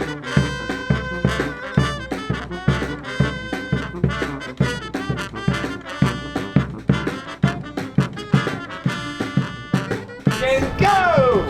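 Street brass band playing: horns holding and moving between notes over a steady drum beat, with a falling slide near the end.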